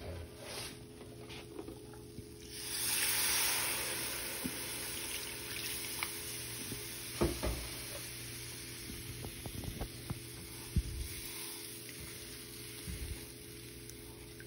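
Milk poured into a hot skillet of flour-and-pan-drippings roux, hissing loudly for about two seconds starting a couple of seconds in. It settles into a quieter steady sizzle, with a few light knocks as a silicone spatula stirs the gravy against the pan.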